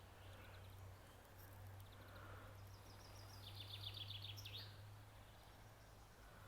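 A small bird calling: a fast trill of repeated high chirps about three seconds in, lasting under two seconds, over a faint steady low hum of outdoor background.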